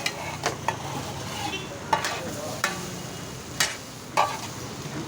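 Metal spatula edges striking a hot cast-iron tawa as parotta is chopped for kothu parotta: about six sharp clangs at uneven intervals over a steady sizzle of oil and masala.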